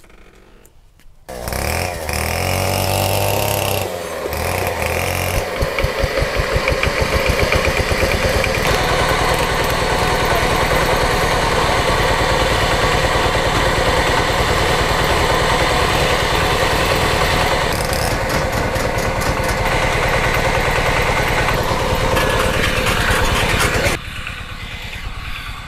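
A small engine starting up with its pitch rising, then running with a fast, even beat. It stops abruptly near the end.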